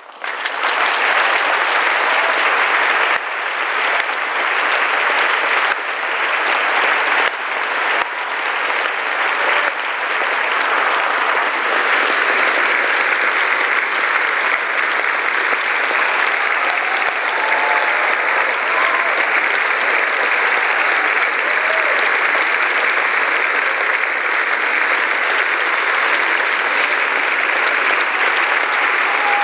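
Large concert-hall audience applauding. It breaks out suddenly after near silence and then holds steady.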